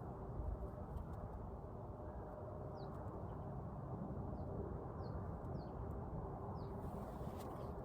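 Faint bird chirps, about half a dozen short high notes each sliding downward, over a steady low background rumble and a faint steady hum.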